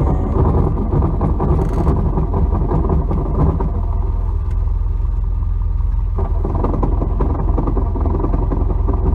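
1992 Nissan 240SX's 2.4-litre four-cylinder engine running, with the rattling and scraping of a failing clutch over it. The rattle fades for about two seconds from about four seconds in, then comes back.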